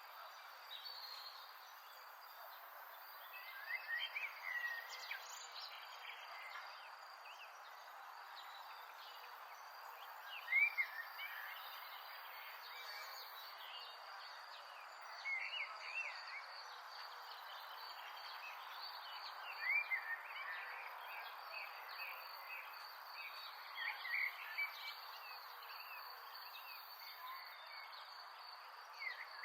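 Outdoor nature ambience: a steady high insect trill over a soft hiss, with clusters of short chirping calls about every four to five seconds.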